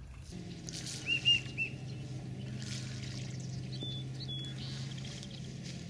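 Short, high whistled bird chirps: three quick notes about a second in and two more a little before the middle, over a steady low hum.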